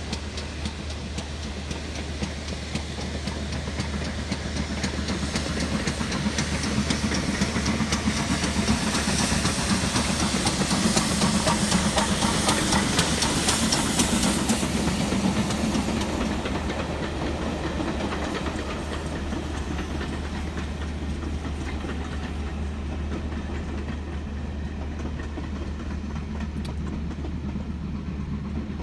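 Steam train passing close by: steam hiss and the clatter of wheels on rail swell to a peak about halfway through as the locomotive goes past, then ease off as the coaches roll on. A car engine idles steadily underneath.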